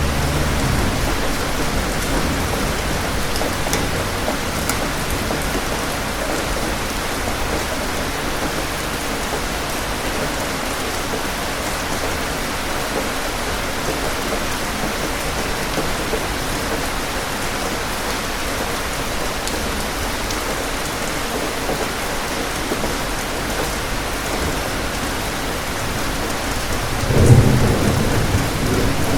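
Steady rain falling, with a thunder rumble dying away in the first second. Near the end a loud peal of thunder breaks and rumbles on.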